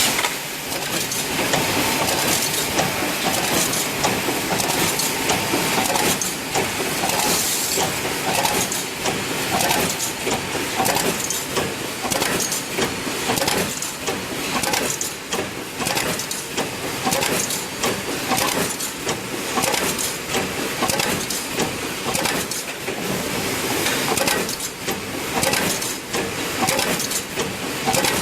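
Automatic wire mesh welding machine running: a steady clatter of rapid mechanical knocks over a continuous hiss.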